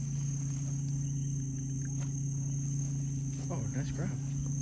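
Steady chorus of night insects, a continuous high-pitched trill, over a low steady hum.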